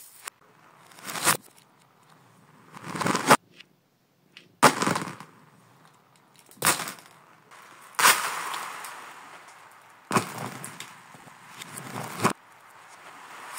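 Handfuls of small plastic beads and toys clattering on a hard floor, played in reverse. About seven clatters come every two seconds or so, and most swell up and then stop short.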